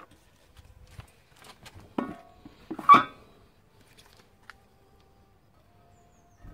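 A tinned copper pan being set down across the rims of plastic buckets: two knocks about a second apart, the second louder and sharper.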